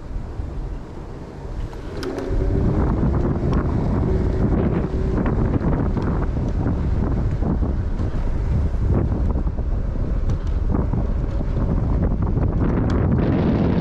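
Wind buffeting the microphone while riding an electric scooter, a dense low rumble that gets louder about two seconds in and then holds steady, with scattered clicks and knocks.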